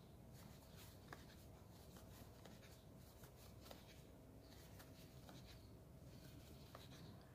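Near silence, with faint rubbing and a few small ticks as a crochet hook works cotton yarn.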